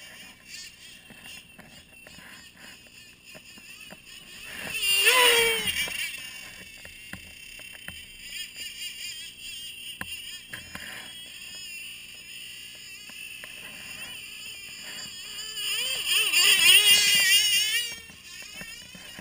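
Radio-controlled snowmobile's motor whining, pitch sliding and wavering with the throttle, loud twice: a falling sweep about five seconds in and a wavering burst near the end.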